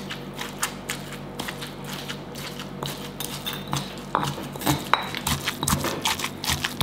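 Pestle pounding curry paste with steamed fish in a mortar: repeated strikes, a few a second, growing louder about halfway through.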